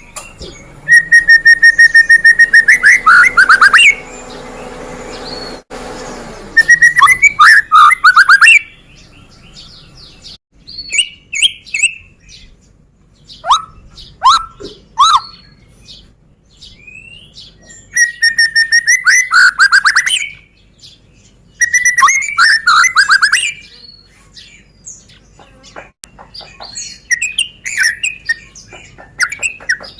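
White-rumped shama (murai batu) singing loud song phrases: fast trilled runs of repeated notes and sharp down-slurred whistles, in bursts a few seconds long with short pauses between them.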